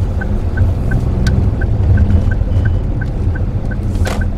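A car's turn-signal indicator ticking evenly, about three ticks a second, over the low rumble of the Daihatsu Move Custom RS's engine and tyres heard inside the cabin. A short sharp knock sounds near the end.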